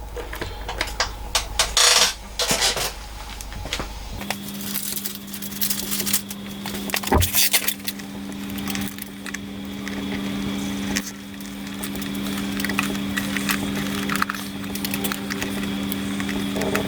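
Handling noises of hands working on wiring: scattered clicks, rustles and crackles. About four seconds in, a steady low-pitched hum starts and carries on.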